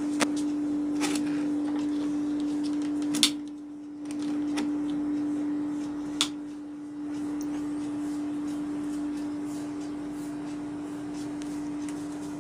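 Rocker switch on a mains extension board clicked to power up a CRT TV, with two sharp clicks about three and six seconds in over a steady low hum.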